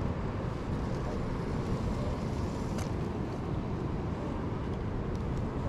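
Steady low rumble of outdoor ambience on an ocean fishing pier, with one faint click about three seconds in.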